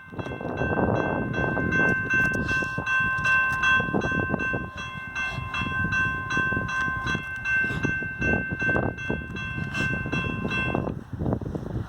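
Amtrak locomotive's multi-chime air horn sounding one long, steady blast for a train approaching a grade crossing. It cuts off about a second before the end.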